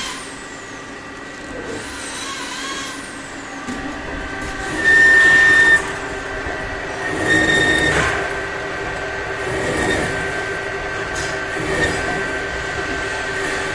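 CNC turning lathe running and cutting metal: a steady machine whine over cutting noise, with a louder, higher whine for about a second a little before the middle and a few shorter surges later.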